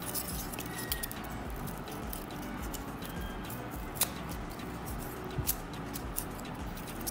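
Hands handling corrugated-cardboard wheel discs on a plastic stick: light rustling with scattered small clicks and taps, one sharper click about four seconds in, over a steady background hiss.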